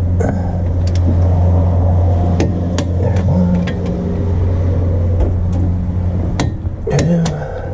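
Ratchet and torque wrench clicking at intervals as the hub knuckle bolts are tightened to 75 foot-pounds, over a steady low motor hum that cuts off about six and a half seconds in.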